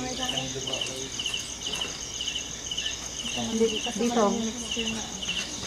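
Crickets chirping in the night, a steady run of short repeated high chirps.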